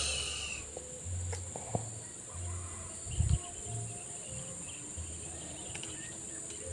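Steady, high-pitched insect chorus with intermittent low rumbles and a dull thump about three seconds in.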